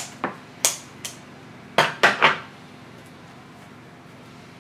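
Scissors snipping through a rolled foam sheet a few times, then a louder clatter of three knocks about two seconds in as the metal scissors are set down on a plastic box.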